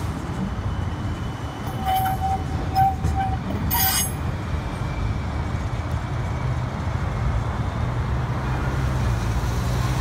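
CAF Urbos streetcar passing in city traffic: a steady low rumble of the tram and road traffic, with a few short, sharp high-pitched sounds about two to four seconds in.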